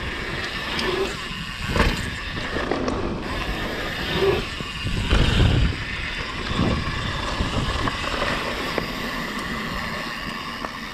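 Mountain bike riding noise on a rider-mounted camera: a steady rush of wind and tyres with several dull thumps from the bike and its mount.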